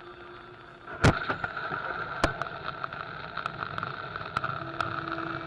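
Car driving through heavy rain with a steady rush of tyre and water noise. A loud thump about a second in as spray hits the windshield, then scattered sharp ticks.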